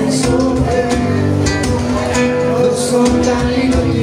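A man playing acoustic guitar and singing into a microphone, a live solo song.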